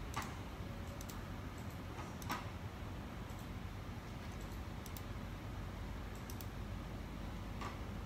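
A few light, scattered clicks and taps from plastic QS anti-spark battery connector housings being handled in the fingers, over a low steady hum.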